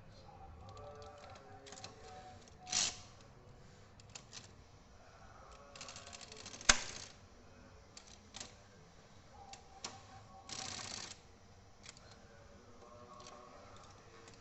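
Brother Deluxe 750TR manual typewriter being worked by hand: scattered key clacks, one sharp, loud strike about halfway through, and two short rasping bursts.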